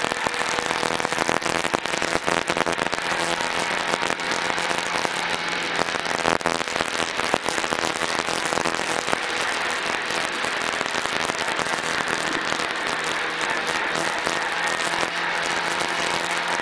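Peugeot 106 rally car's four-cylinder engine heard from inside the cabin, running at steady revs while held back through a slow zone, with a constant, irregular crackling and rattling over it.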